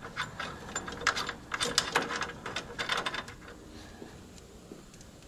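Hand socket ratchet clicking in several short runs while loosening a 17 mm fan shroud bolt, with the clicking dying away in the last couple of seconds.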